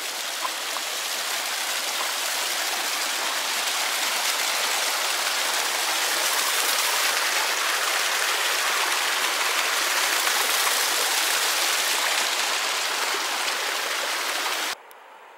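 A small mountain creek cascading over rocks: a steady, loud rush of water that cuts off suddenly near the end.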